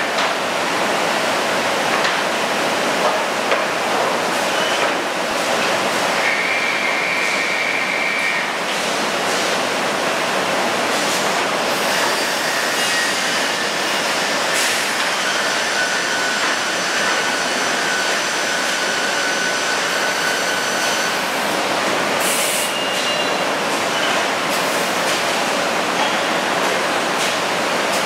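Biesse Skipper 100 CNC panel boring machine running amid factory noise: a steady mechanical rush with scattered clicks and knocks. A high whine sounds from about six to eight seconds in, and fainter steady tones from about fifteen to twenty-one seconds.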